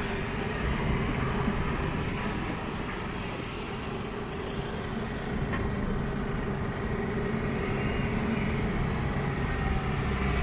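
Steady low rumble of city traffic with a constant mechanical hum.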